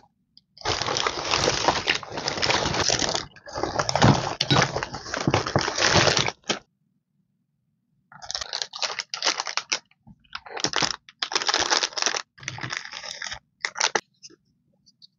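A plastic shopping bag rustling and crinkling as it is handled for about six seconds. After a short pause come short bursts of crinkling as cellophane-wrapped sticker and masking-tape packs are set down one by one.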